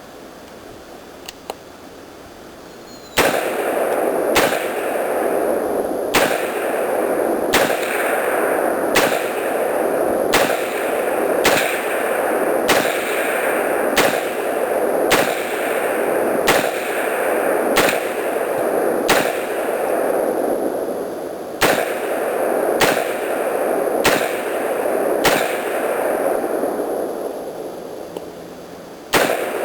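AR-15 rifle firing semi-automatic, one deliberate shot about every second and a half, some eighteen shots with a short break near the end. Each report rings on into the next. A couple of small clicks come just before the first shot.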